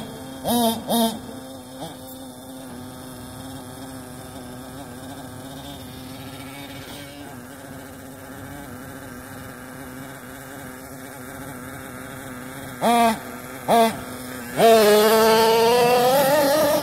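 Small two-stroke glow engine of a nitro RC truck idling with a steady buzzing drone. It is revved in short rising blips twice just after the start and twice about 13 seconds in, then held at high revs for the last two seconds.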